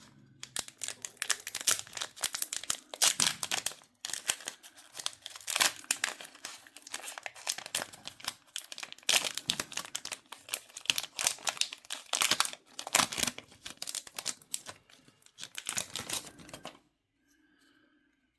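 A foil trading-card booster pack being torn open and its wrapper crinkled and crumpled in the hands, in a dense irregular crackling that stops about a second and a half before the end.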